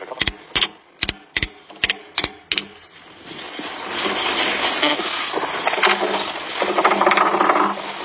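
Hammer striking a steel pin or drift on an excavator bucket tooth: about seven sharp metallic clanks over the first two and a half seconds, then a louder continuous noise.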